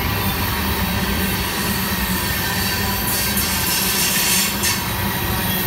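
Loaded ballast hopper cars of a freight train rolling past, steel wheels running steadily on the rails. A high metallic wheel squeal rises about halfway through and fades near the end.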